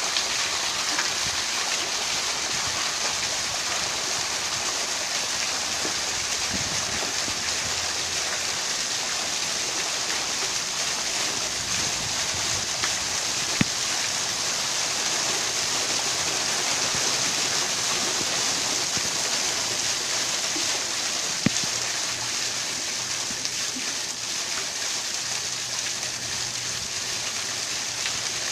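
Small waterfall running steadily, an even rush of falling and splashing water. Two short knocks stand out, one about halfway through and one later.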